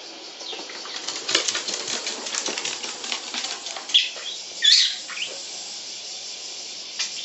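Small pet parrot's wings fluttering in a quick run of rustling beats, then two sharp chirps about four and five seconds in.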